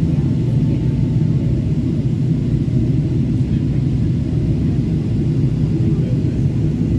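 Steady low rumble inside the passenger cabin of a Boeing 777-300ER in flight: its engines and the airflow over the fuselage make an even drone.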